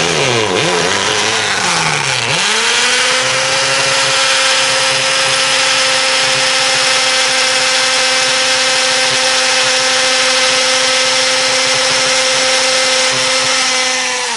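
Corded hammer drill boring into a brick wall. The motor's speed wavers for the first couple of seconds, then it runs steadily at full speed with a harsh hammering rattle, and it slows as the trigger is let go at the very end.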